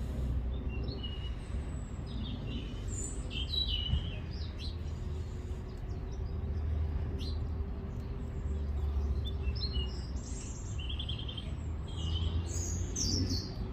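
Small birds chirping and calling in short scattered phrases over a steady low rumble.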